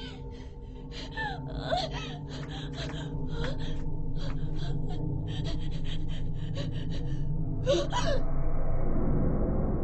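A person gasping in rapid, ragged breaths, with a few short whimpering cries, over a steady low drone. Near the end the gasping stops and a rougher low rumble takes over.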